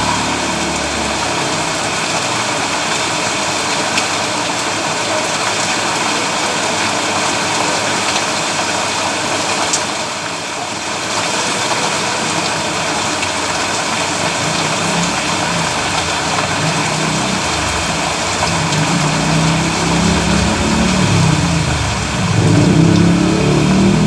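Steady hiss of heavy rain falling on a road. A vehicle engine joins in the last several seconds and grows louder.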